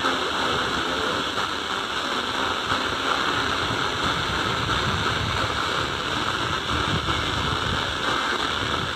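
Steady hiss of radio static from an off-air receiver, even and unbroken.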